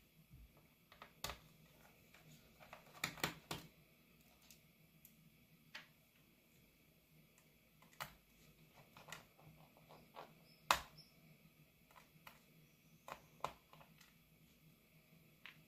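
Scattered light clicks and taps of small tools and plastic parts being handled on a laptop's plastic case, irregularly spaced, with one sharper click a little past the middle.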